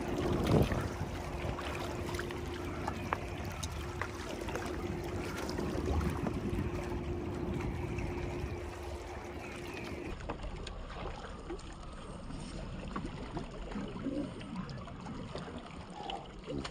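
Wind on the microphone and small waves lapping against breakwater rocks, with a steady hum that cuts off about ten seconds in; after that, water trickling and splashing.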